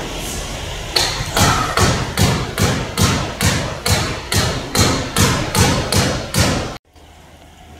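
A quick, even run of sharp knocks, about two and a half a second, like steady hammering, which stops abruptly near the end, leaving only a low quiet hum.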